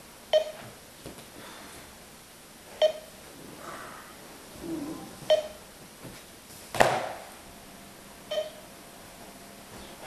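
Short electronic beeps from a computer countdown timer, one every two and a half to three seconds: the alarm that sounds once fewer than four minutes remain to enter the code. There is a soft rustle, then a single loud thump about two-thirds of the way through.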